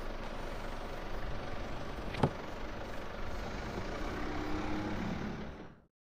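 Newly replaced electric window motor in the door of a 2005 Ford Ranger pickup running steadily as it winds the glass up: the repaired window working. A single sharp click comes about two seconds in, and the sound cuts off just before the end.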